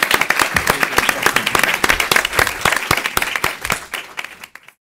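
Audience and panel applauding: steady, dense clapping that thins and fades out, cutting off just before the end.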